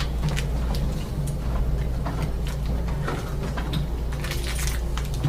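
Small metal clicks and taps as the new door lock cylinder and its ring are handled and fitted, over a steady low hum.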